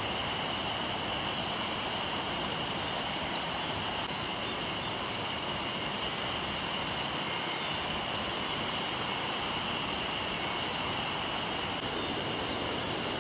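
Waterfall rushing steadily, a constant even roar of falling water, with a steady high-pitched whine running over it.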